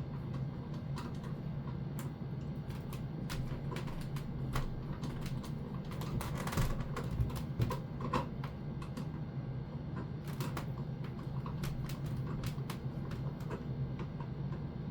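Irregular light clicks and taps of small parts being handled during hands-on installation work on a fire alarm device, thickest in the middle, over a steady low hum.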